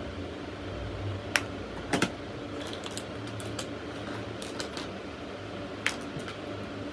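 A steady low hum with a scattered series of light, sharp clicks and taps on top. The loudest clicks come about one and a half and two seconds in and again near six seconds, with a quick cluster of smaller ones between about two and a half and five seconds.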